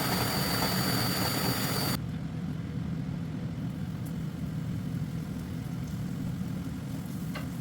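Steady low motor hum from a running kitchen appliance. For the first two seconds a loud hiss with a high whine sits over it, then stops suddenly.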